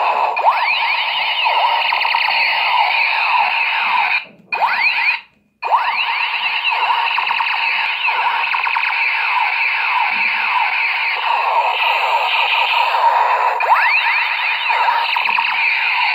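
Light-up toy space blaster gun playing its electronic laser sound effects: overlapping rising and falling sweeps that run on like a siren. The sound cuts out twice briefly, about four and five seconds in.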